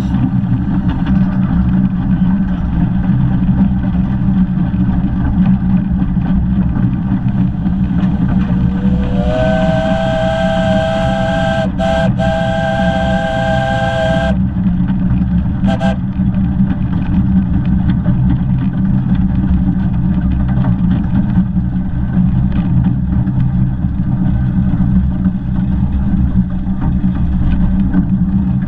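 Steam locomotive on the 15-inch-gauge Ravenglass & Eskdale Railway running with a steady low rumble, which about a third of the way in sounds its chime whistle: a chord of several notes that slides up into pitch and holds for about five seconds with two brief breaks, then one short pip about a second and a half later.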